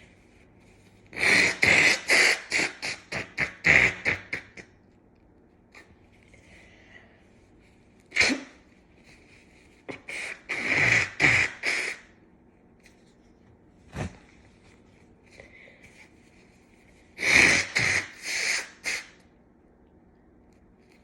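A person sneezing in three fits of quick, repeated sneezes, with a single sneeze between the first two. The sneezes are induced by tickling a nostril clogged by cat allergy with a cat whisker.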